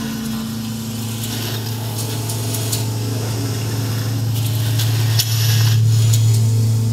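Electroacoustic accordion-and-laptop music: a steady low drone with a fainter tone above it, swelling louder about five seconds in, under scattered high clicks and crackles.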